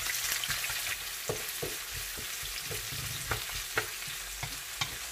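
Garlic and onions sizzling in hot canola oil in a wok, with a steady hiss. They are stirred with a utensil that knocks and scrapes against the pan several times.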